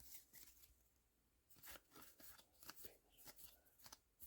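Near silence, with faint, scattered soft clicks and rustles of trading cards being handled and flipped through.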